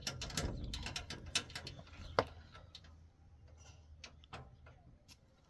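Clicks, rattles and knocks of a door and its latch being handled, busiest in the first two seconds with one sharper knock about two seconds in, then a few scattered faint clicks.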